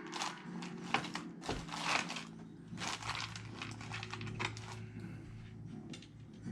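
Small metal screws and computer parts being handled, giving irregular light clicks, rattles and rustles over a steady low hum.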